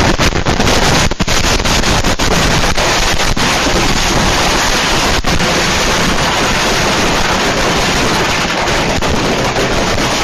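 A pile of consumer fireworks going off together in a continuous, dense crackling barrage, with sharp louder bangs in the first few seconds that thin into a steady crackle.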